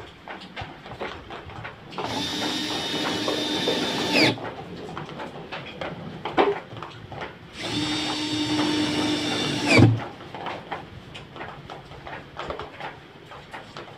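Cordless drill-driver running in two bursts of about two seconds each, a steady whine that winds down in pitch at the end of each, as it drives screws on a top-loading washing machine's tub ring. A sharp knock comes as the second burst stops.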